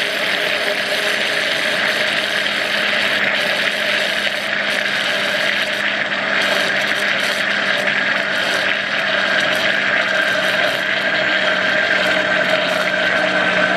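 Countertop blender running steadily, its motor humming over the churning of liquid. Oil is being drizzled in a thin stream while milk and olives are blended into mayonnaise, the mixture emulsifying as it spins.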